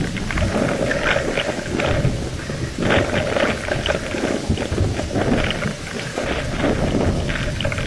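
Hurricane wind and heavy rain, a dense rushing noise that swells and falls in gusts every second or so over a constant low rumble.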